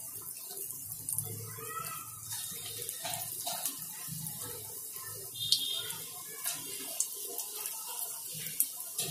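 Moong dal pakoda batter balls deep-frying in hot oil in a kadai: a steady sizzle with scattered sharp crackling pops.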